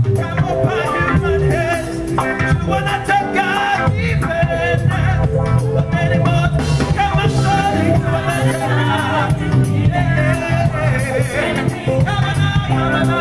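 Live church band playing with voices singing over it: drum kit, bass guitar, lead guitar and keyboard keep a steady beat under the sung melody.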